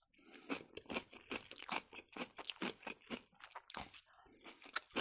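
Close-miked chewing of crunchy napa cabbage kimchi: irregular wet crunches and mouth clicks, several a second.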